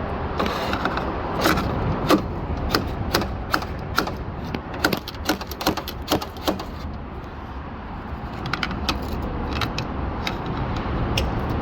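Metal clicks, knocks and rattles of a truck door handle assembly being worked loose inside the door, coming thick and fast for the first several seconds, then a few scattered clicks later, over a steady low rumble.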